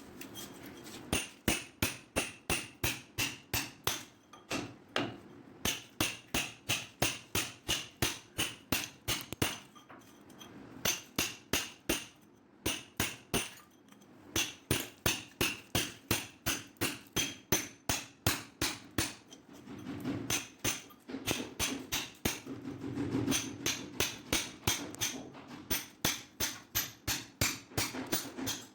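Repeated hammer blows in runs of about three a second, broken by short pauses.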